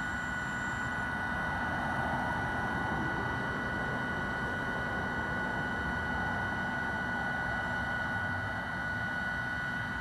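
Road traffic passing on a highway, two vehicles swelling and fading, with a steady high-pitched whine running underneath throughout.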